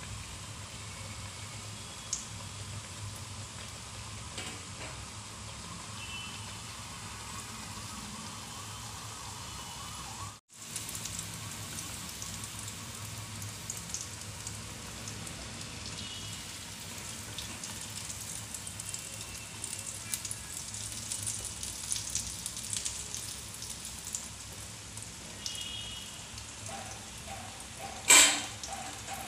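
Hot oil sizzling and crackling in a kadai as maize fritters deep-fry, with a brief break about a third of the way in. Near the end a single loud, ringing clank of the wire skimmer against a steel plate as the fritters are tipped out.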